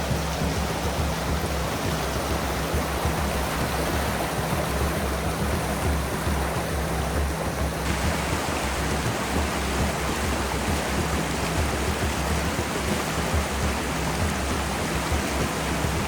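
Rushing creek water over rapids, a steady even hiss, with background music underneath.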